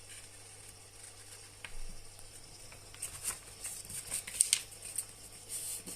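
A sheet of A4 paper being folded and creased by hand: quiet at first, then a cluster of short rustles and scrapes in the second half.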